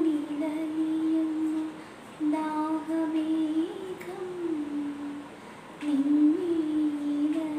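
A woman humming a slow melody unaccompanied in long held notes, in three phrases with short breaks between them.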